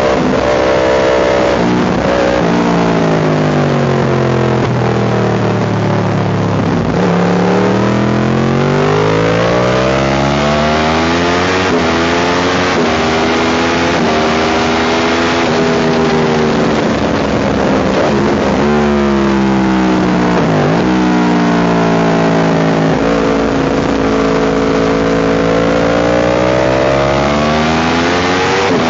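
Motorcycle engine heard up close from on board, its revs falling as it slows for corners and climbing again through the gears, with short breaks at the gear changes. A rushing noise of wind runs under it.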